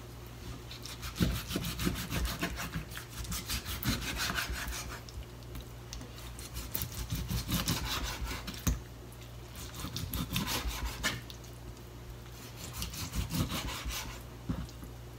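Chef's knife slicing through raw chicken thigh and scraping on a cutting board, in four spells of quick strokes with short pauses between.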